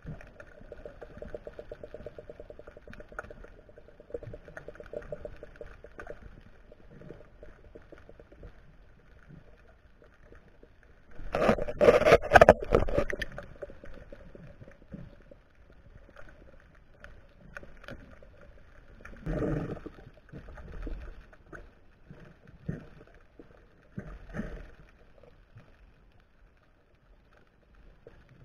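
Muffled underwater water noise picked up by a camera in a waterproof housing, with a loud gurgling rush of water about eleven seconds in lasting two seconds, and two shorter surges later.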